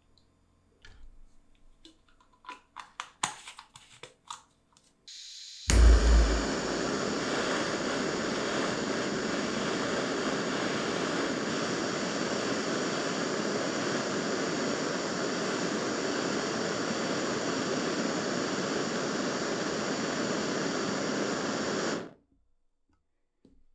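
A few small clicks and taps, then a soft hiss and a low pop as a brass-headed cartridge gas torch lights about six seconds in. Its flame burns with a steady rushing hiss while it heats a steel awl blade red-hot, then cuts off suddenly near the end.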